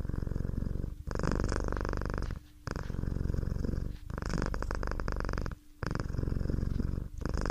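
A cat purring steadily in rhythmic stretches of about a second and a half, broken by short pauses for breath.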